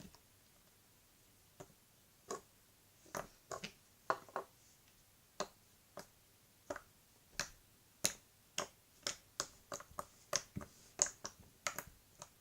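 Slime being poked with a finger, giving sharp little pops and clicks as the air pockets in it burst. The pops are sparse at first, then come at about two a second.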